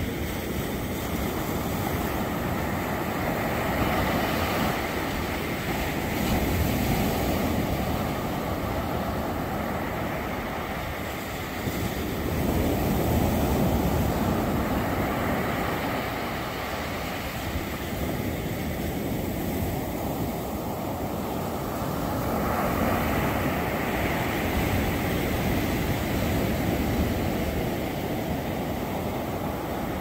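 Ocean surf: small waves breaking and washing up a sandy beach, the sound swelling and easing every several seconds.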